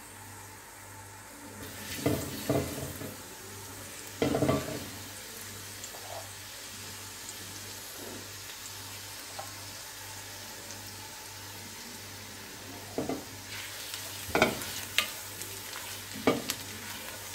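Chopped garlic sizzling in hot oil in a pot, the sizzle picking up about two seconds in. A silicone spatula knocks and scrapes against the pot several times while stirring, about two and four seconds in and again near the end.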